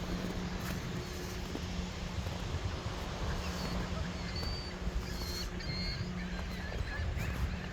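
Outdoor ambience: a steady low rumble and a constant low hum, with a few short high-pitched bird chirps in the middle.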